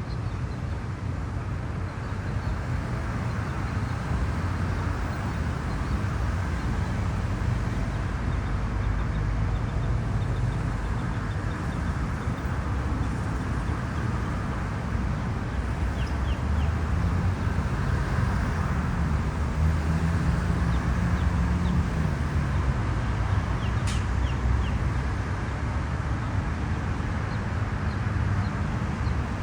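Steady low outdoor rumble, with a few short, faint bird calls from water birds about halfway through and again later on.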